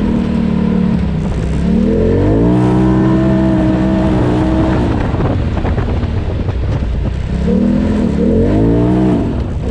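Polaris RZR Turbo side-by-side's turbocharged engine accelerating on a woods trail: it climbs in pitch and holds, drops off throttle with a rattly stretch, then rises and falls again near the end.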